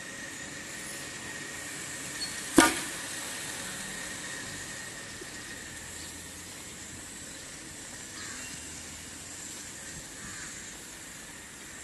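Foam toy missile fired from a hand-pumped air-pressure launcher: a single sharp pop of released air about two and a half seconds in, with a brief tail after it, over a steady background hiss.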